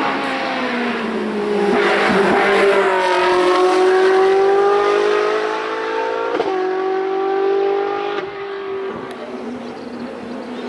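Ferrari 458 Challenge Evo's 4.5-litre V8 racing engine at high revs, passing close by. Its pitch falls over the first couple of seconds, then climbs steadily under acceleration, with a sudden step about six and a half seconds in.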